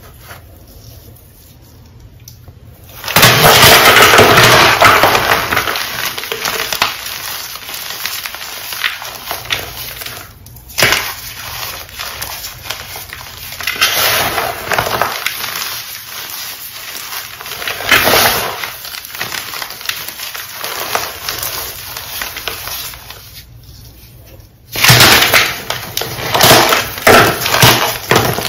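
Glitter-coated gym chalk blocks being crushed and crumbled by hand, in loud crunching, crackling bursts. It is quiet for about the first three seconds, and there is a short lull shortly before the end.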